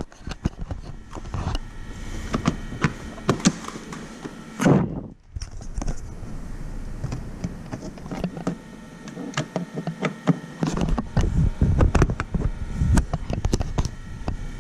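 Plastic dashboard trim pieces being handled and pushed into a car's dash: an irregular run of clicks, knocks and rubbing, with a brief gap about five seconds in and busier knocking near the end.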